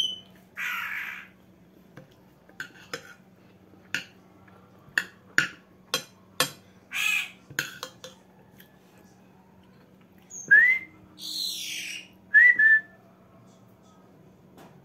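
Whistling in a call-and-answer between a woman and her pet bird: one loud rising whistle about ten seconds in, then two short whistles. Before that, a spoon clicks several times against a glass dish during eating.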